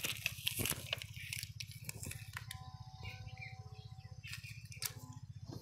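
Faint crinkling and crackling of a torn foil firecracker wrapper being handled, over a low steady hum. A faint steady tone sounds for about a second and a half in the middle.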